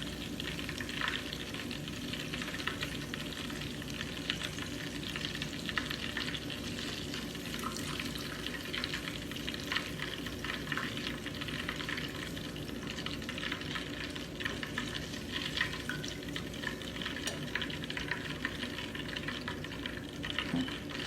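Flour-coated chicken tenders frying in a pan of hot peanut oil, a steady sizzle and crackle full of small pops.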